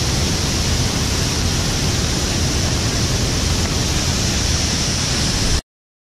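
Steady rushing of a waterfall stream: a dense, even hiss over a low rumble, which cuts off suddenly near the end.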